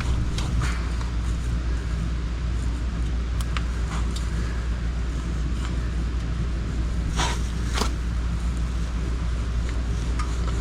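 A steel pry bar levering against the steel receiver hitch to bend it down, giving scattered metal clicks and knocks, with two louder clanks about 7 and 8 seconds in. A steady low hum runs underneath.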